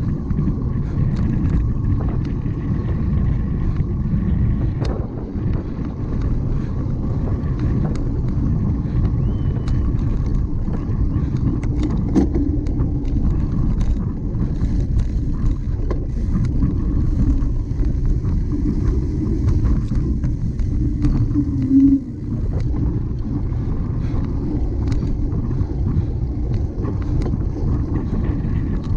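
Wind rumbling on the microphone, with the rattles and knocks of a cyclocross bike ridden hard over rough ground, and a sharper knock about three quarters of the way through.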